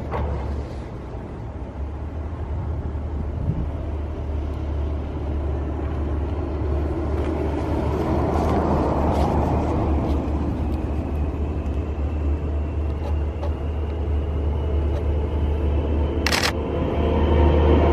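Road traffic on a snow-covered street over a steady low rumble, with a car passing close about eight seconds in. In the second half a thin whine slowly rises in pitch, and near the end the sound grows louder as a streetcar approaches.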